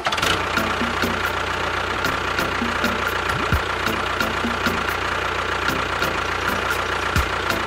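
A motor running steadily, with a thin steady whine over an even mechanical noise, starting suddenly.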